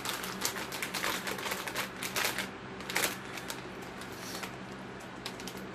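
A Cheetos Xtra Flamin' Hot snack bag crinkling as it is handled and turned over: a dense run of crackles for about three seconds that then thins to a few scattered crinkles.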